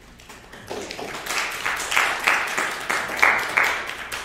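A small audience applauding: the clapping swells after about a second and starts to fade near the end.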